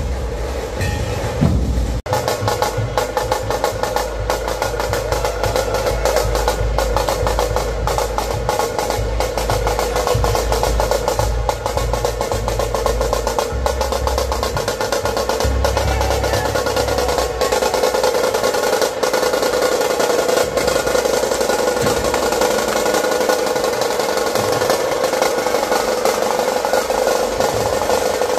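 Puneri dhol-tasha drumming: fast rolls on the tasha drums over deep dhol beats. The deep beats thin out about halfway through while the rolls carry on.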